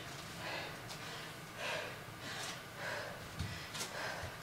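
A woman breathing hard after a burpee interval, quick audible breaths in and out about once every three-quarters of a second.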